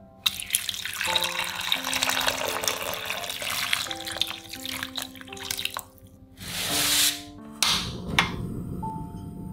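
Water poured into a pan of cut potato chunks, splashing steadily for about five seconds and then stopping. Near the end come a short hiss and a couple of sharp clicks as a portable gas stove burner is lit.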